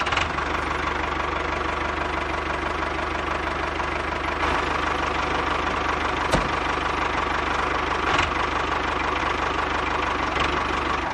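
Small electric motor of a miniature DIY borewell drilling machine running steadily with a whirring gear rattle, with a sharp click about six seconds in.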